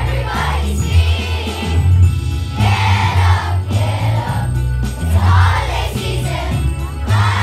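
A large group of young children singing a Christmas song together over a recorded backing track, with jingle bells and a steady bass in the accompaniment.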